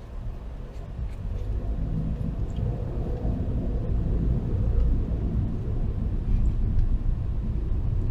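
Car road and engine rumble heard from inside the cabin while driving, growing louder over the first few seconds and then holding steady.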